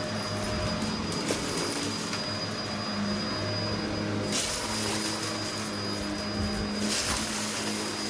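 Vacmaster Captura vacuum cleaner running steadily, a low hum with a thin high whine, with two brief louder surges about four and a half and seven seconds in.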